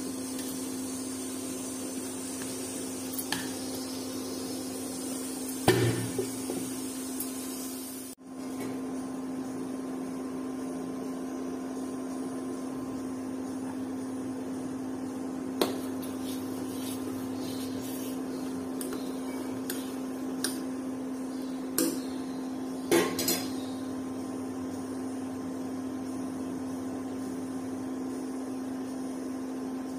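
Steady electric hum of an induction cooktop running, broken by a few sharp knocks of metal pots and utensils, the loudest about six seconds in and two more close together near the end.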